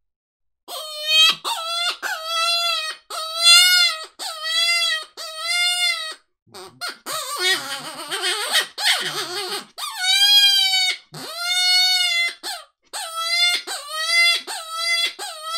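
Legend Major Red open-reed predator hand call blown in a prey distress sequence. It makes a string of short, high, wavering cries, about one a second, broken midway by a few seconds of harsher, raspy squalling before the cries resume.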